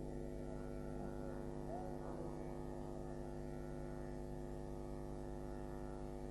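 Steady, even electrical hum, with a faint voice-like sound in the background between about one and two seconds in.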